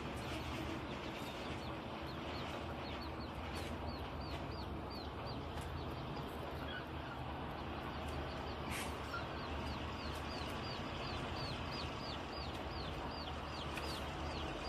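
Steady low rumble of distant earthmoving machinery and truck engines, with a bird calling runs of short high chirps, about two or three a second, early on and again near the end.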